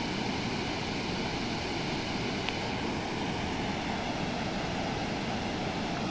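Steady rush of a large waterfall and a river in flood: a constant, even roar of water.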